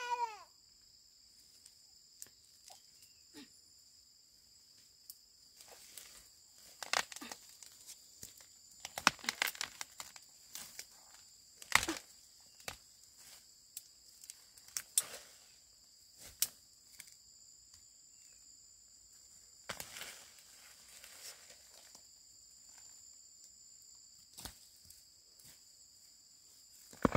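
Scattered rustling, snapping and cracking of cassava plants and roots being pulled and broken off, busiest in the middle with one sharp crack about twelve seconds in. A steady high drone of insects runs underneath.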